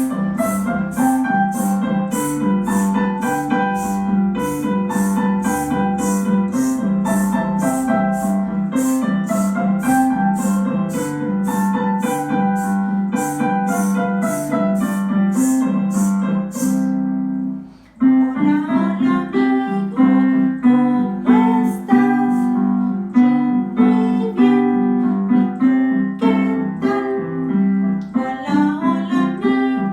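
Instrumental music on keyboard or piano with a steady beat. A high ticking percussion keeps time about twice a second through the first half, then stops, and after a brief break the music goes on with short, separately struck notes.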